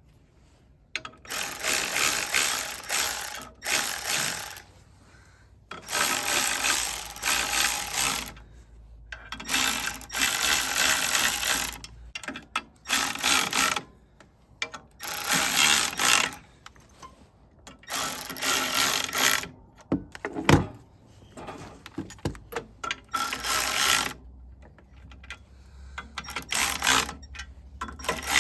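A ratcheting tool worked in repeated bursts of one to two seconds each, with short pauses between them.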